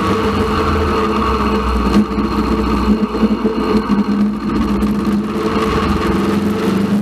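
Honda CB500X's parallel-twin engine running with a steady hum, the low rumble growing uneven for a few seconds in the middle.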